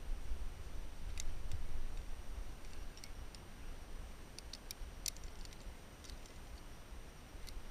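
Aluminium carabiners of a climbing quickdraw clicking and clinking against the bolt hanger and each other as it is clipped on lead. A handful of sharp metallic clicks are spread through, with a quick cluster about four to five seconds in, over a low rumble.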